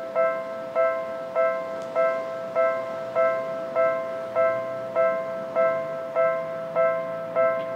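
Japanese railway level-crossing alarm ringing its electronic bell, an even ding-ding of pitched, quickly decaying tones about 1.7 a second, warning of an approaching train.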